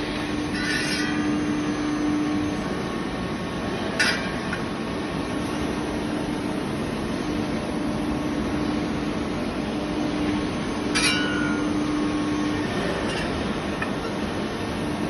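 CNC press brake running during bending work: a steady machine noise with a humming tone that comes and goes, and two sharp clacks, about four and eleven seconds in.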